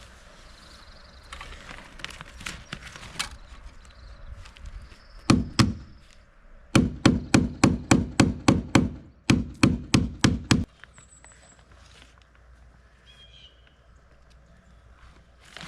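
Hammer pounding: a few light taps, then about a dozen sharp, ringing blows in quick runs of roughly three a second. A bent part is being pounded back into shape.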